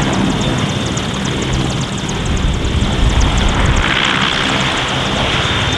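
Royal Navy AgustaWestland Merlin helicopter's three turbine engines and main rotor running steadily on the ground, with a fast, even pulsing; a brighter hiss swells about four seconds in.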